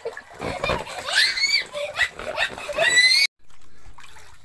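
Children squealing and shrieking with laughter during rough play in a pool, high-pitched cries rising and falling in pitch. About three seconds in the sound cuts off abruptly.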